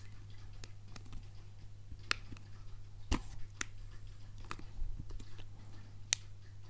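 Handling of a phone case and phones on a table: a few scattered sharp clicks and taps, the clearest about three seconds in and near the end, over a steady low hum.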